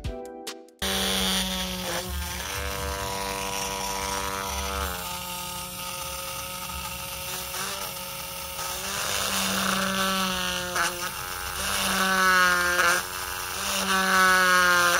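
Homemade 12 V mini drill, built on a small 365-size DC motor, running with a steady high whine while a fine bit drills holes in a small board. The whine dips in pitch and recovers several times as the bit bites in and breaks through. A bit of music cuts off under a second in.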